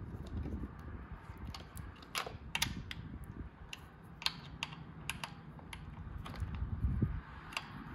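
Small ratchet and socket clicking as it turns the bolts of an aluminium frame-slider bracket. The metal clicks come in irregular runs of a few a second, over faint handling noise.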